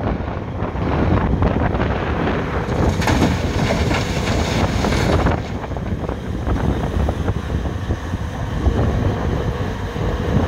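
Cat 374F hydraulic excavator running under load as it dumps a bucket of blasted limestone into a Komatsu HD405 dump truck's steel bed, the rock clattering and rattling in from about three seconds in for a couple of seconds. Then the excavator's engine and hydraulics work on as the bucket swings back and digs into the rock pile.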